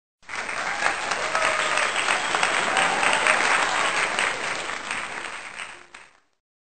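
A crowd applauding: a dense patter of many hands clapping that fades toward the end and cuts off abruptly.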